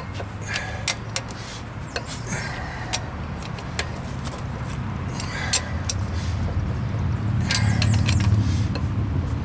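Torque wrench on a wheel's lug nuts: a scattering of sharp metallic clicks as each nut is double-checked for torque. Under it is a low steady rumble that grows louder in the second half.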